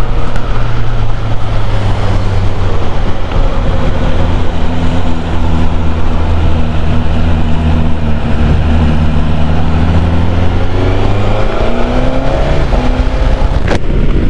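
Suzuki GSX-S1000GT's inline-four engine running at a steady cruise over wind and road noise. About eleven seconds in, the engine note changes and climbs in pitch for a couple of seconds. A single sharp click comes near the end.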